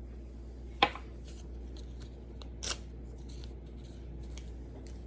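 Small handling sounds from injection supplies: a sharp click about a second in, then a brief crinkle near three seconds, with faint ticks between.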